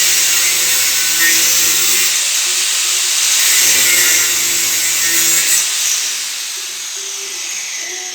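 A power tool running with a loud, steady hiss. A lower motor hum comes in twice for a couple of seconds each, and the sound fades away over the last couple of seconds.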